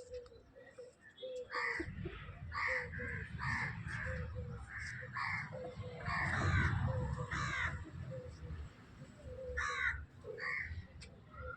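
Birds calling over and over in short, repeated calls, at times about two a second, over a low rumble that fades near the end.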